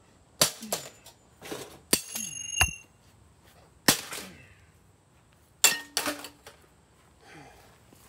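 A toaster oven being smashed: a string of hard, irregular blows with a clatter of breaking parts, some hits giving a short metallic ring.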